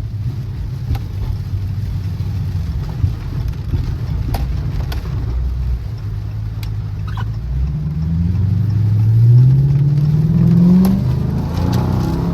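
Chrysler 300C's Hemi V8 running low and steady, then from about seven and a half seconds in revving up under acceleration, its pitch climbing steadily for about three seconds before dropping as the throttle comes off.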